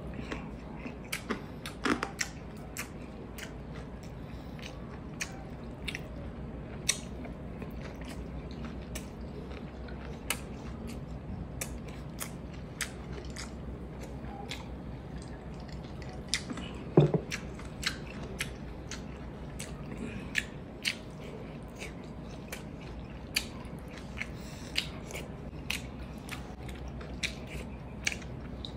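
Close-miked mouth sounds of eating kinilaw, raw fish with onion, by hand: chewing with many short, sharp clicks and smacks. A louder knock comes about 17 seconds in.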